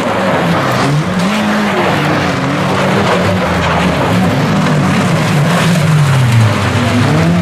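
Several autocross race cars running hard on a dirt track, their engines revving up and falling back again and again as they shift and pass close by.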